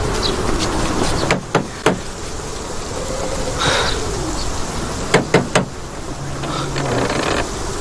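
Fight-scene sound effects: sharp hits, three in quick succession about a second and a half in and three more around five seconds, with a swish just before four seconds, over a low wavering hum.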